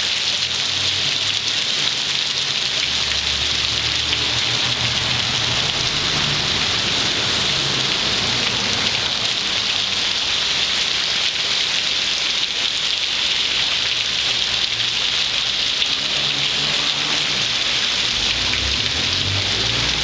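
Heavy rain pouring onto a wet street and pavement, a steady dense hiss, with a low rumble coming and going underneath.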